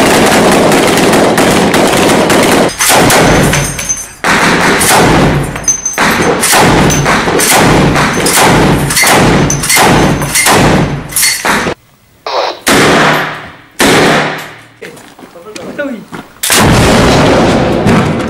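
Close-range gunfire from rifles and a belt-fed PK-type machine gun, in rapid bursts and single shots, breaking off briefly about twelve seconds in. Near the end comes a longer loud blast as a shoulder-fired rocket-propelled grenade is launched.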